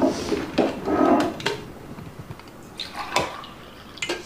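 A ceramic mug and a glass water pitcher handled on a kitchen counter: several short knocks and clinks, then water poured from the pitcher into the mug near the end.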